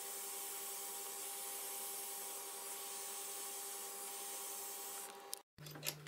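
Handheld butane torch flame hissing steadily while flame-polishing the edge of an acrylic block, played back sped up, with a steady hum beneath it. The sound cuts off abruptly near the end, followed by a few clicks over a lower hum.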